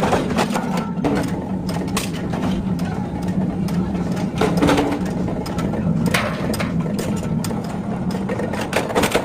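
Washer-forging machinery running with a steady hum and irregular sharp metallic clicks and knocks.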